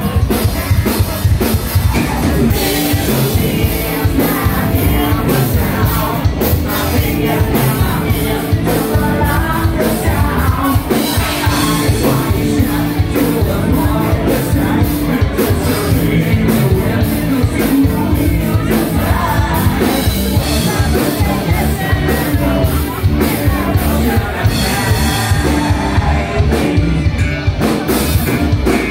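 Live rock band playing loudly: a singer over electric guitar and a drum kit.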